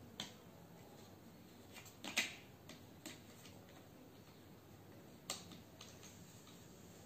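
Cardboard jigsaw puzzle pieces being handled and set down on a puzzle board: a few light, sharp clicks, the loudest about two seconds in and another about five seconds in, with softer ticks between.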